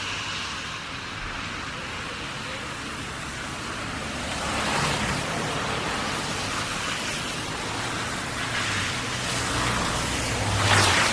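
Cars passing on a wet street after rain, their tyres hissing on the wet road under a steady traffic wash. One car swells past about halfway through, and a louder one with engine hum passes near the end.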